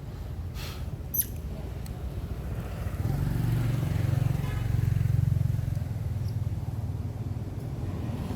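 Low rumble of a motor vehicle going past, swelling about three seconds in and then easing off, with a couple of short high squeaks about a second in.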